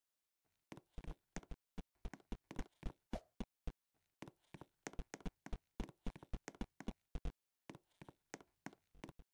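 Rapid, irregular series of sharp taps and knocks, several a second, broken by short pauses about four seconds in and again past seven seconds.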